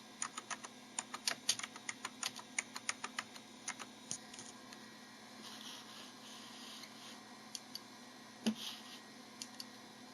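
Typing on a computer keyboard: a quick run of keystrokes for about four seconds, then a few scattered key presses, the loudest about eight and a half seconds in.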